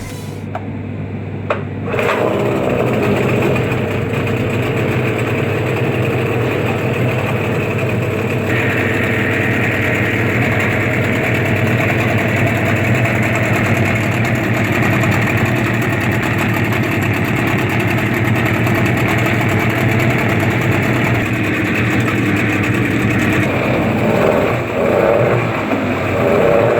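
Suzuki DT9.9A two-stroke twin-cylinder outboard motor running steadily; it gets louder about two seconds in, and a higher tone joins its note about eight seconds in.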